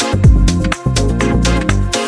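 Background electronic music with a steady beat and a deep bass drum whose hits drop in pitch.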